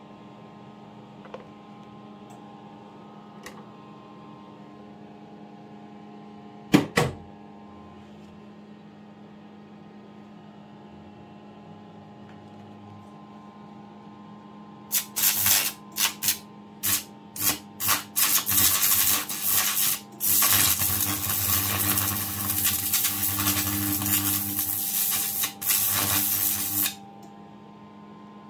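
Carbon arc lamp: a steady electrical hum from its power supply, a single sharp crack about a quarter of the way in, then the arc between the carbon rods sputtering in short bursts. It then catches and burns with a steady loud hiss for about seven seconds and cuts off suddenly near the end.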